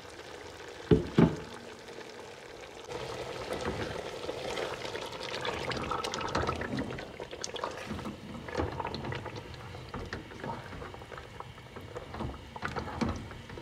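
A thick onion-tomato-chilli paste being stirred into browned chicken in hot oil in a stainless steel pot with a silicone spoon: wet squelching and sizzling with many small clicks. A single sharp knock about a second in.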